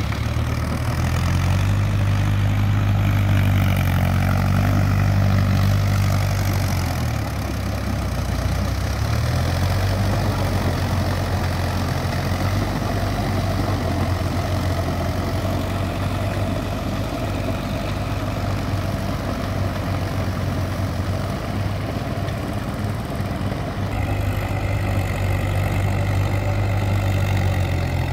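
Mahindra Yuvo 575 4WD tractor's four-cylinder diesel engine running steadily under load while pulling a rotary tiller through wet paddy mud. The engine note dips briefly about eight seconds in, then steadies again.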